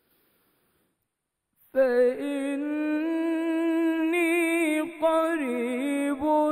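Male Quran reciter chanting a verse in melodic recitation, with long drawn-out notes that waver in ornamented turns. The voice comes in after nearly two seconds of silence and breaks briefly about five seconds in.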